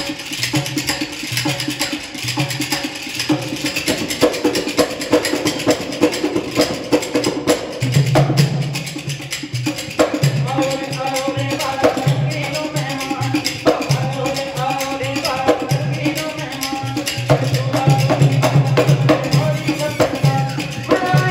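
Rajasthani folk music accompanying a kathputli puppet show: a drum beats a steady rhythm with sharp clicking percussion. From about ten seconds in, a pitched melody line stands out more clearly over the beat.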